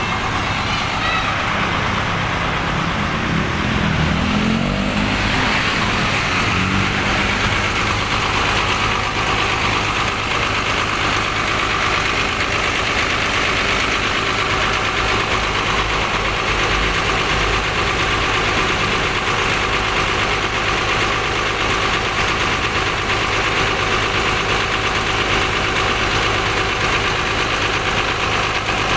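Rear-mounted diesel engine of an intercity bus idling steadily, heard up close through the open engine bay.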